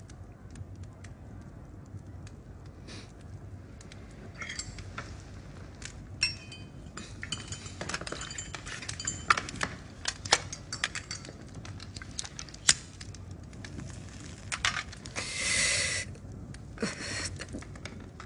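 Cutlery clinking and scraping on china plates and cups during a meal: scattered sharp clinks, a few with a short ring. A rasping noise lasting about a second comes near the end.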